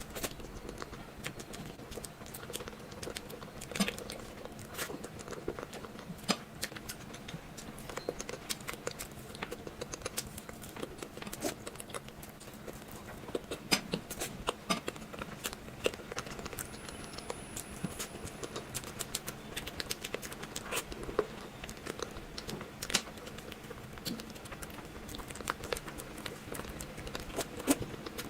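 Close-miked eating sounds: irregular small crunches, wet mouth clicks and chewing, some louder crunches standing out.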